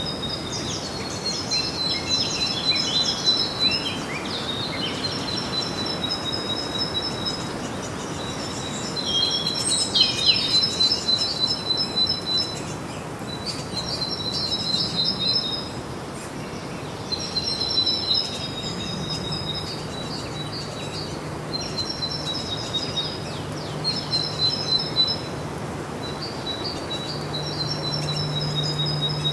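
Songbirds singing outdoors: high-pitched phrases of rapid notes, each a second or two long, repeated every few seconds over a steady background hiss. A low steady hum comes in about two-thirds of the way through and grows louder near the end.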